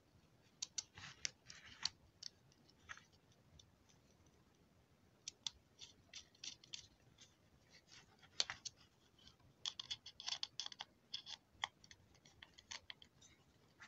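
Quiet, irregular clicks and scrapes of a screwdriver turning the large metal screw that fixes the heatsink on a laptop power-supply circuit board, with the board handled between turns. They come in clusters separated by short quiet gaps.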